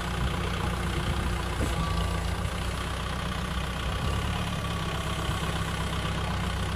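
Kubota M6040 tractor's four-cylinder diesel engine running steadily.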